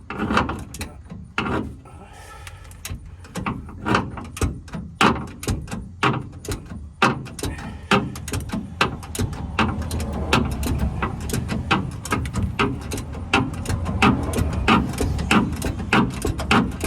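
Hand wrench being worked in short strokes on a rusted nut, giving a quick, uneven run of metallic clicks and knocks that thickens in the second half as the nut slowly turns.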